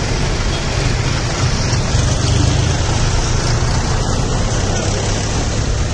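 Tractor engines running as a line of tractors drives past on a road, a steady low rumble mixed with traffic noise.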